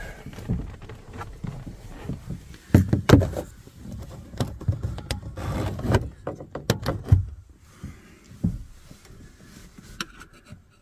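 A string of irregular knocks, clicks and rustles from hard plastic dash trim and a wiring connector being handled, with a flat screwdriver prying at the connector's locking clip near the end.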